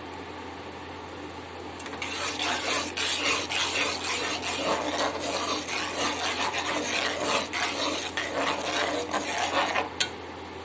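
Slotted steel spoon stirring thick tomato sauce and scraping against a metal wok: a rapid rasping scrape that starts about two seconds in and stops shortly before the end, over a steady low hum.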